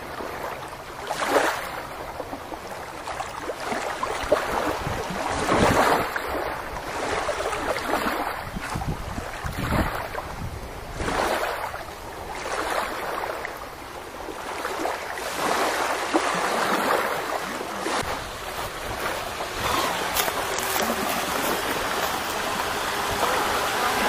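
Small waves lapping onto a pebbly river shore, washing in again and again every couple of seconds.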